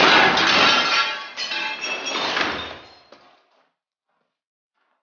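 A loud crash and clatter with glassy ringing, fading out about three seconds in, after which the sound cuts off to silence.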